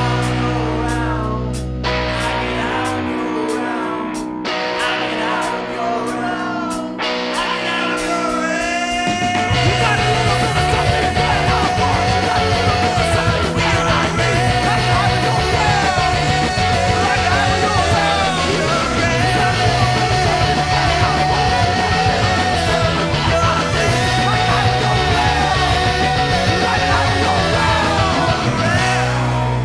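Indie rock band playing with guitars: a sparser passage for the first several seconds, then the full band comes in about nine seconds in, louder and denser.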